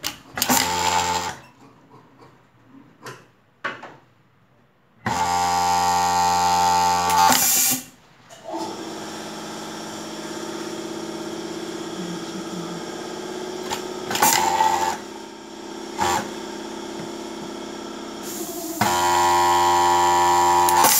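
Voltex H8 industrial overlock sewing machine stitching in fast bursts, a high motor whine that starts and stops four times, with quieter steady running in between. Some bursts end in a short hiss of air, the machine's pneumatic thread cutter.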